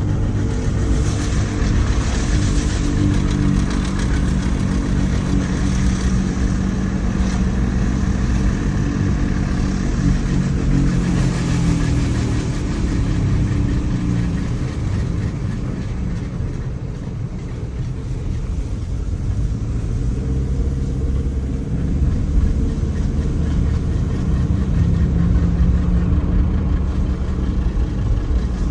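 Car engine running steadily, with a high hiss over it for roughly the first twelve seconds that then fades; the noise is one the owner cannot identify.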